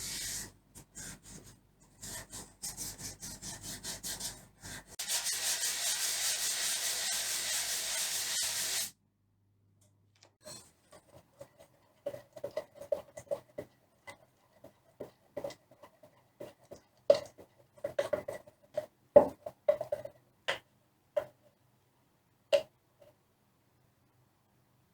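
Sandpaper on a wooden tray: a series of short rubbing strokes, then a few seconds of continuous sanding that stops abruptly about nine seconds in. After a short pause come scattered light knocks and taps.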